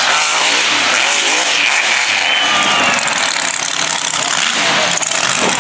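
Mega truck engines running loud and revving, the pitch rising and falling again and again.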